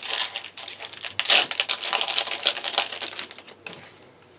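Foil wrapper of a Yu-Gi-Oh! booster pack crinkling as it is torn open, a dense run of crackles that is loudest about a second in and dies away after about three and a half seconds.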